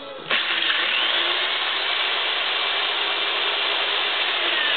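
Large electric drill starting up about a third of a second in, then running steadily in reverse as its hole saw rubs and melts its way through acrylic sheet.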